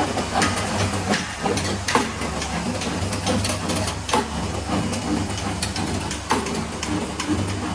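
CNC servo automatic stirrup bending machine working 6 mm steel bar: a steady low hum from its motors with irregular sharp clacks as it feeds and bends the bar.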